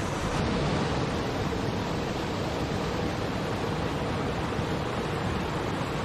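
Small waterfall cascading over boulders into a river: a steady, even rush of splashing water.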